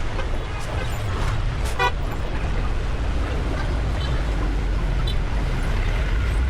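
Busy street traffic: a steady low rumble of engines with short horn toots, the clearest about two seconds in and fainter ones around four and five seconds.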